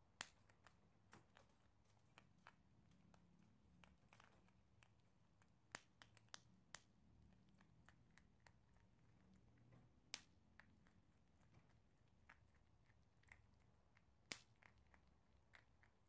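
Prairie dog chewing small dry pellets: faint, irregular crunchy clicks, with a few sharper cracks standing out.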